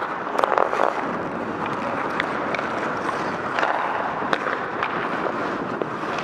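Ice hockey skates scraping and gliding on the ice, a steady hiss, with scattered sharp clacks of sticks and puck.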